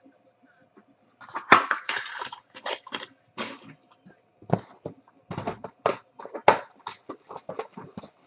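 Plastic shrink wrap being torn and crumpled off a sealed trading-card box. It is a run of irregular crackling and crinkling that starts about a second in and carries on in quick bursts.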